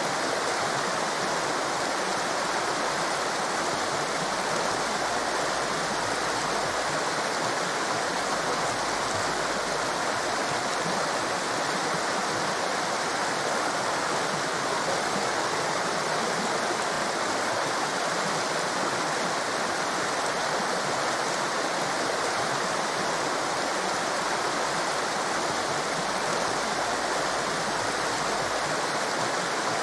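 Rushing water of a torrent: a steady, even hiss of white water that does not change.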